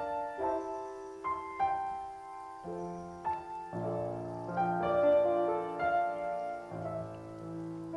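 Slow, gentle piano music: single notes struck and left ringing over one another, with lower notes joining about four seconds in.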